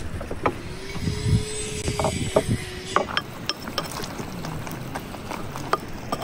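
A metal serving spoon clinking and scraping against the inside of an earthenware pot of stew, a string of short sharp clicks and knocks.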